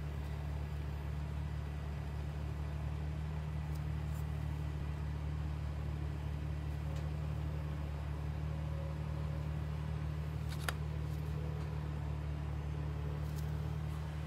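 Steady low mechanical hum with no change in pitch or level, and a few faint light clicks, the sharpest about ten and a half seconds in.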